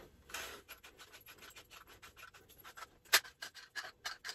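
Hands tightening a kitchen faucet's fittings onto the sink: light rubbing and scraping with a string of small clicks, one sharper click a little after three seconds in.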